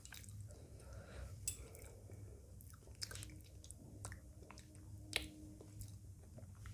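Close-up chewing of a mouthful of rice and spicy chicken curry, with soft wet mouth clicks, the sharpest about one and a half and five seconds in, over a faint steady low hum.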